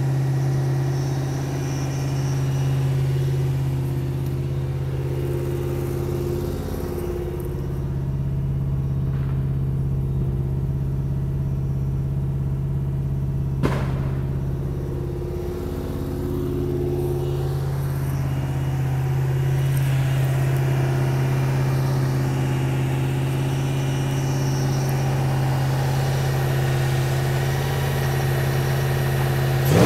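Toyota 2UZ-FE 4.7 L V8 in a Land Cruiser 100 Series running at a steady fast idle near 2,000 rpm, a cold engine's high idle. A single sharp pop about halfway through is a neighbour's firecracker, not an exhaust backfire.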